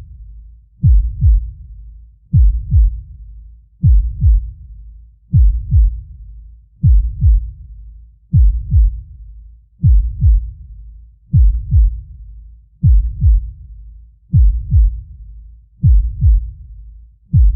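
Deep heartbeat sound effect: a slow, steady lub-dub, two low thumps close together, repeating about once every one and a half seconds with a low rumble between beats.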